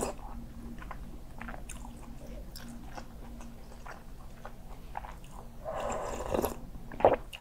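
Close-up eating sounds of kimchi jjigae: mouth clicks and chewing, then a louder slurp from a spoonful of the stew about six seconds in. A sharp click comes just before the end.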